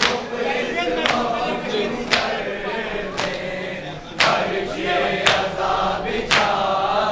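Men's voices chanting a noha in chorus, with the sharp slap of matam, hands striking chests in unison, keeping a steady beat of about one stroke a second.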